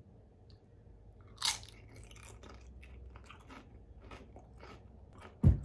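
A person bites into a potato chip coated in maple-syrup butter with ice cream on top: a loud, crisp crunch about a second and a half in, then chewing with a run of smaller crunches. A short low thump comes near the end.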